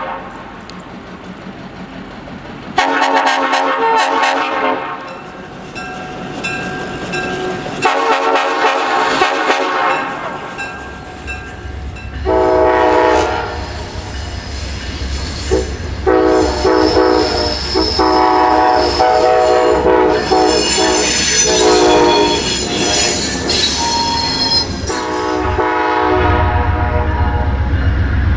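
Multi-chime train air horns sounding a series of long chord blasts: two separate blasts in the first ten seconds, then blasts in quick succession with only short breaks from about twelve seconds in. Under the later blasts runs a low, steady rumble.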